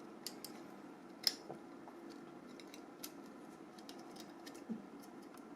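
Faint, scattered small clicks and taps of the Nokia E65's parts being handled during disassembly, with one sharper click about a second in.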